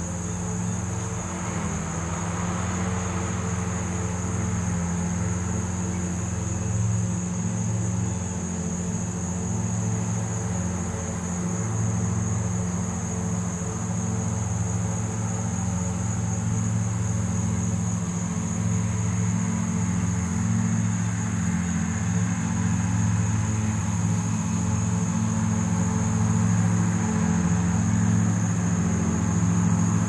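Steady high-pitched drone of insects such as crickets, over a continuous low rumble.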